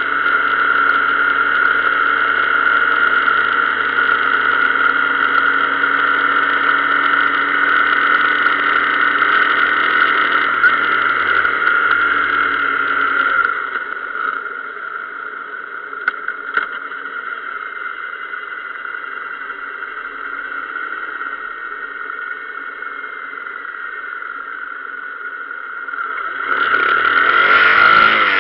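Motorcycle engine running steadily while riding, heard from a camera mounted on the bike, with the rush of the ride under it. About halfway through the low rumble drops away and the sound gets a little quieter. Near the end it grows louder with a sweeping change in pitch as the engine picks up.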